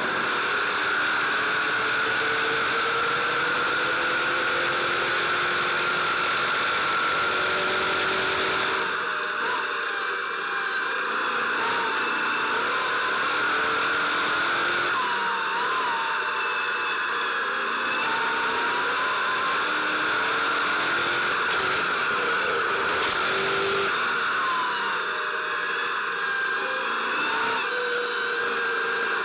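Stadium Super Truck racing flat out, heard from inside the cab. The engine and drivetrain make a steady, loud whine over road and wind noise, and the pitch rises and falls now and then with the throttle.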